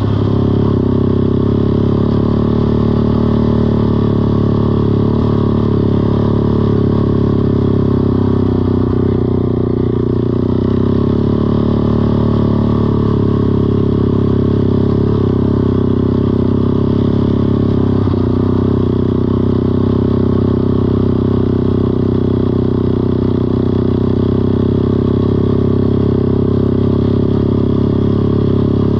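Four-wheeler engine running at a steady speed, loud and even, with only slight shifts in pitch.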